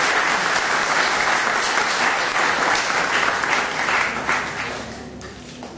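Audience applauding, a steady clapping that dies away in the last second or so.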